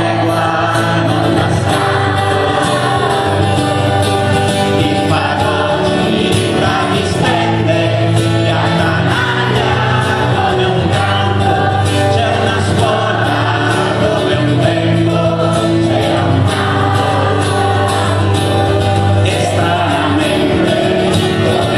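Children's choir singing a song in Italian together with a male singer on acoustic guitar, over a live band accompaniment.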